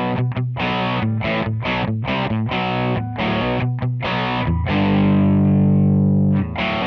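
Electric guitar played through a Line 6 POD 2.0 amp modeler on a distorted patch, recorded direct with no room sound. It plays a run of short, choppy chords, then a chord held for about a second and a half, cut off as the choppy chords resume.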